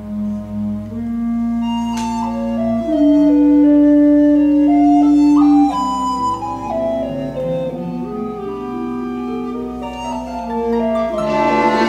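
Instrumental chamber music: a slow woodwind melody in long held notes over lower sustained notes. Fuller bowed strings come in near the end.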